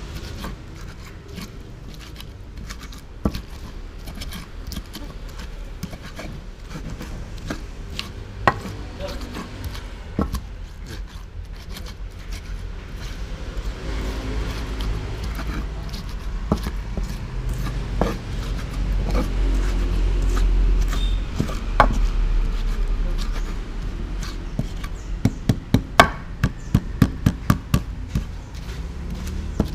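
A stone pestle grinding and crushing chilies, shallots and garlic on a clay mortar plate: scraping and rubbing, with scattered sharp knocks of stone on the plate. Near the end comes a quick run of about ten taps as the pestle pounds.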